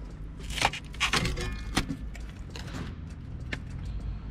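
Rotten wood from a caravan's floor corner being broken and pulled away by hand: a few sharp cracks and crackles of crumbling, rotted timber.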